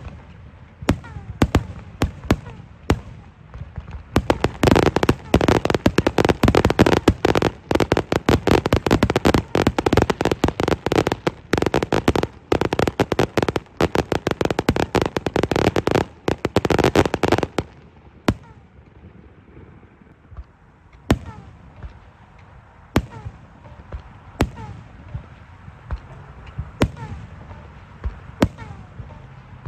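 Fireworks going off: a few separate bangs, then from about four seconds in a dense barrage of rapid bangs and crackling that stops suddenly a little past halfway. After that come single sharp reports, a second or two apart.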